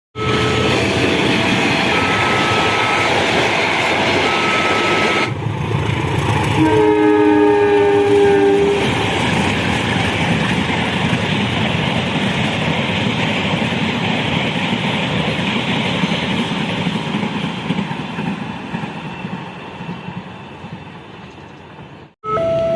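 Level crossing warning tones repeat over the noise of a train for the first five seconds. Then the locomotive horn sounds a chord for about two seconds. The Argo Merbabu passenger train runs past on the rails, and its noise fades away over the last few seconds before the warning tones return.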